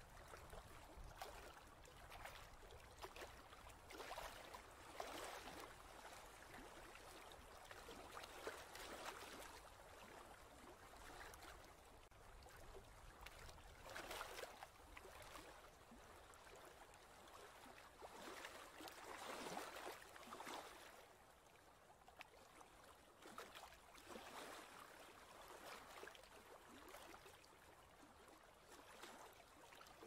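Faint ocean-wave noise, a soft hiss swelling and fading every few seconds.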